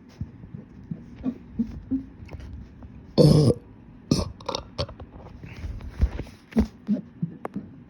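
A person burping: one loud burp about half a second long a little past three seconds in, followed by several shorter, sharper throat and mouth sounds.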